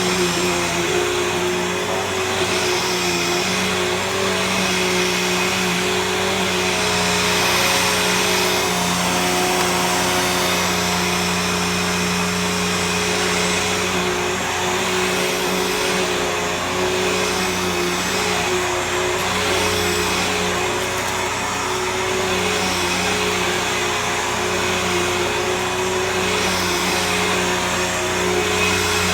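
Bissell CleanView Helix Select upright vacuum cleaner running steadily: a loud motor whine over a rush of airflow, with its tone wavering slightly as it is used.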